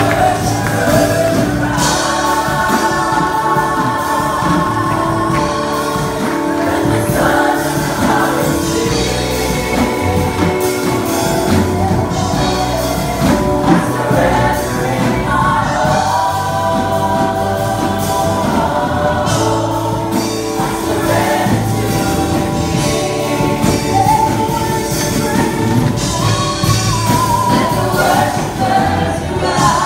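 Live gospel worship song: several women singing together into microphones, backed by a band with a drum kit, amplified through PA speakers.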